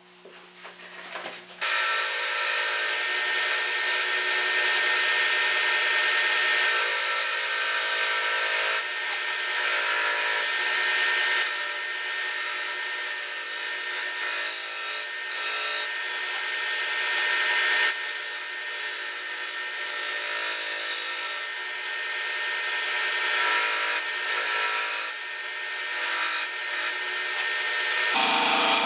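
Wood lathe running while a hand-held turning tool cuts into a spinning yellow birch bowl blank, starting about two seconds in: a steady hiss of cutting and shavings over the machine's faint hum, with brief dips as the tool comes off the wood. He is taking more wood off to thin the bowl's wing.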